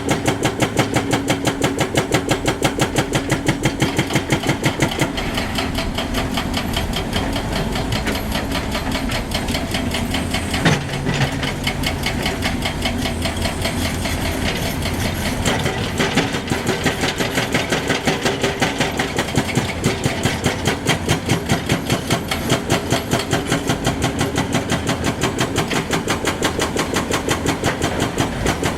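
Heavy excavator's diesel engine running with an even, rapid throb. A single sharp clank comes about eleven seconds in.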